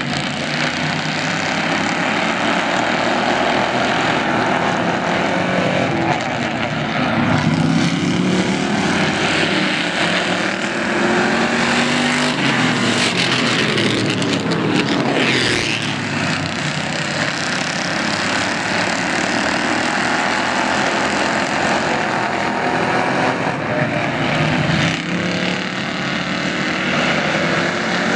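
A pack of Ford Crown Victoria V8 stock cars racing on a paved oval, engines running hard, their pitch rising and falling as they pass. One loud close pass comes about halfway through.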